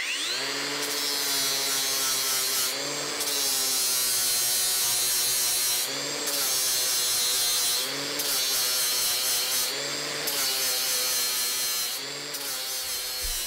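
Metabo WPB 18 LT BL 11-125 cordless angle grinder with a 36-grit flap disc grinding the steel edge of an anvil, dressing out chips and radiusing the corners. The motor spins up at the start, then runs with a steady whine and grinding hiss that eases briefly about every two seconds as the disc is lifted and set back on the steel.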